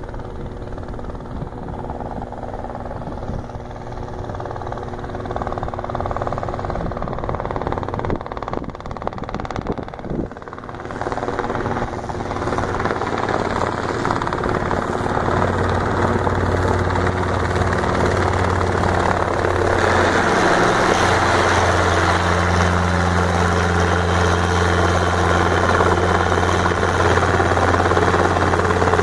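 Robinson R22 Beta II helicopter approaching and coming in to hover, its two-blade rotor and four-cylinder piston engine growing steadily louder. In the second half the sound settles into a steady low hum under a rushing rotor wash.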